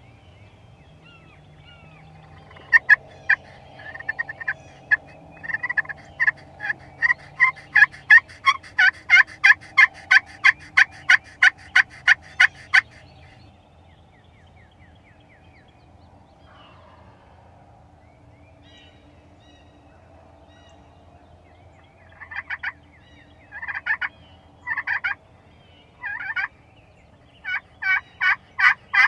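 Turkey call worked by hand to imitate a hen, sounding close and loud: a long run of evenly spaced sharp yelps, about three a second, lasting some ten seconds. After a pause come several short clusters of yelps, then another fast run near the end.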